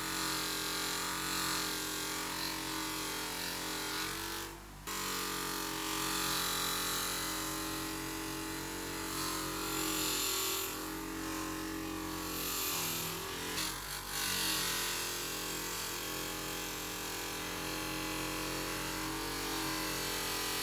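Bench grinder motor running with a buffing wheel as a small steel wrench jaw is held against it and polished: a steady motor hum with the rubbing of the metal on the wheel. The sound drops out briefly a little before five seconds in.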